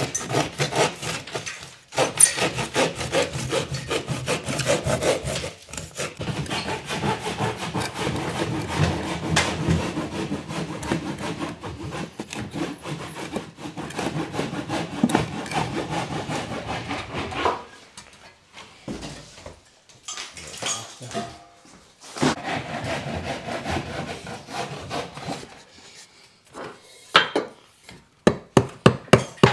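Saw cutting through wood in long runs of quick strokes, with a short break partway through. A few sharp knocks near the end.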